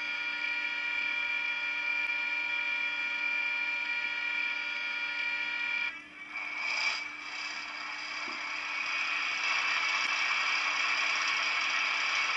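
Sound decoder of a Märklin BR 216 model diesel locomotive playing a BR 218 diesel engine sample through its small speaker. A steady whine breaks off about six seconds in. After a short burst, the diesel start-up sound builds to a steady running noise over the last few seconds.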